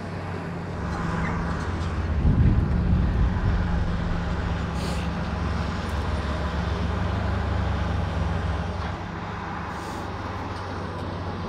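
Diesel engine of construction machinery running steadily with a low hum. It grows louder from about a second in, is loudest around two and a half seconds, and drops back near the end.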